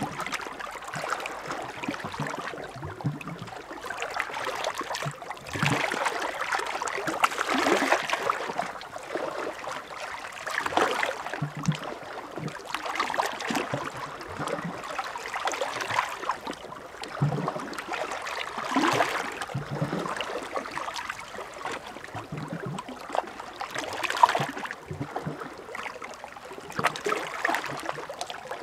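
Small sea waves washing onto a beach and drawing back, a gurgling, splashing wash that swells every few seconds.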